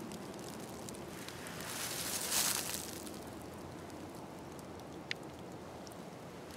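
Faint rustling of dry fallen leaves underfoot over a steady soft hiss, swelling briefly about two seconds in, with one small click near the end.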